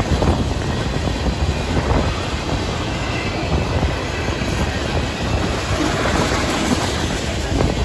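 Freight train cars rolling past at a grade crossing: a steady rumble of wheels on rail, mixed with strong wind buffeting the microphone.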